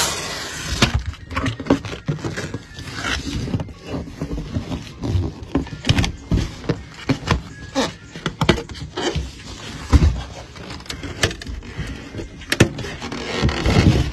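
A microwave and its packaging being handled during unboxing: irregular knocks, clicks, scraping and rustling, with a heavy thud about ten seconds in.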